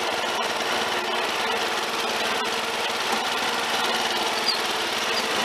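Snapper LT11 garden tractor's engine running steadily under way, heard close up from the seat.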